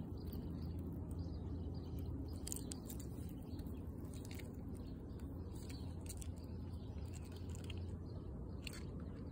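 Faint scattered clicks and scratches from a fox squirrel eating and clambering on tree bark, over a steady low background rumble.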